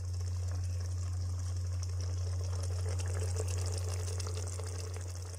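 Beef keema with peas gently simmering in an electric rice cooker pot: a fine, steady crackling bubble over a constant low hum.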